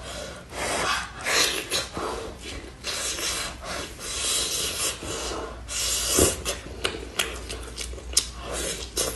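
Close-miked eating of boiled meat: meat tearing off the bone, with wet biting, chewing and sucking in a string of short swishes and smacks. The disposable plastic gloves rustle and rub as the meat is pulled apart.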